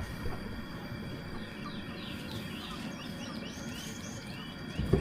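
Outdoor background in which a small bird repeats short high chirps, a few each second, starting about a second and a half in. A short knock near the end.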